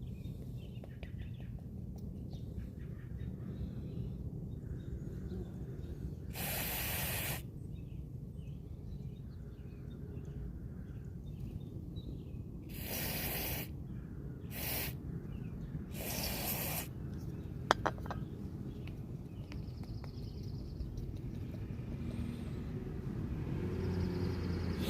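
Aerosol can of mass airflow sensor cleaner spraying in four short hisses, each a second or less, as it washes soot off a truck's mass airflow sensor. A sharp double click comes about two-thirds of the way through, over a steady low rumble.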